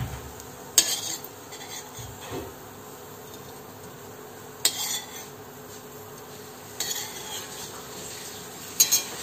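Steel spoon scraping fried ginger out of a kadai (wok) and tapping it onto a plate: a few sharp metal clinks and scrapes a couple of seconds apart, over a steady faint sizzle of hot coconut oil.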